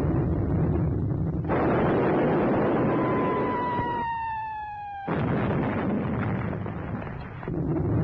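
Artillery shells over a low rumble: a blast about a second and a half in, then an incoming shell's whistle falling in pitch that ends in an explosion about five seconds in.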